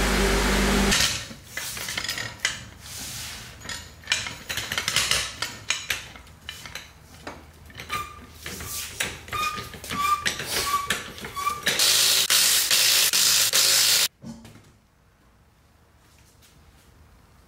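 Aluminium floor jack being pumped by its long handle under a car: a run of metallic clicks, clanks and short squeaks. Near the end comes about two seconds of loud rattling from a cordless impact wrench spinning off the wheel's lug nuts.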